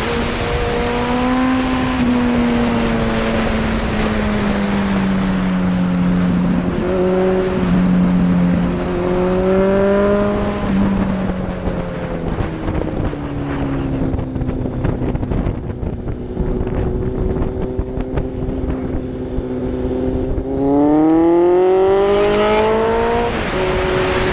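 Yamaha XJR1300's air-cooled inline-four engine under way, heard from the bike, with wind rushing over the microphone. The engine note rises and falls with the throttle, runs steadier through the middle, then climbs sharply in a loud acceleration near the end.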